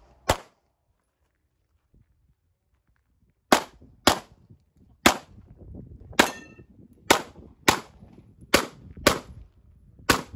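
Pistol shots in a rapid string: one shot at the start, about three seconds without shots, then nine more, several in quick pairs about half a second apart. One shot midway is followed by a brief ringing tone.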